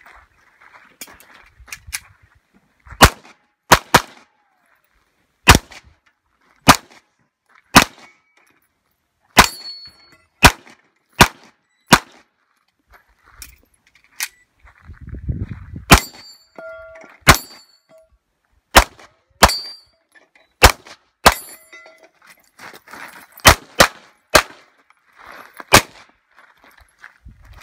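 Handgun shots fired through a USPSA stage, about twenty in quick pairs and singles with pauses between shooting positions. Several hits are followed by a brief metallic ring from steel targets being struck.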